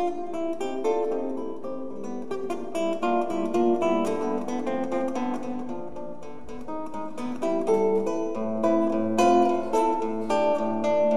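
Acoustic guitar playing a busy run of picked notes in a live trio piece. About eight seconds in, a low held note from the bass clarinet comes in under the guitar.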